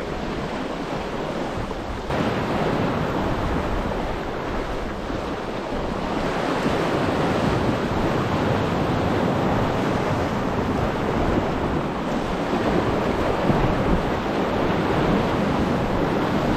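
Rushing, splashing water of a sailing yacht's bow wave and spray as the hull drives fast through the sea, mixed with wind buffeting the microphone. It steps up in loudness about two seconds in.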